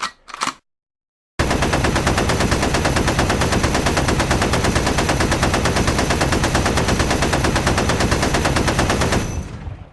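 Browning 1919 machine gun firing one long sustained burst of about eight seconds, shots in rapid even succession, after two short clacks at the very start; the firing fades out near the end.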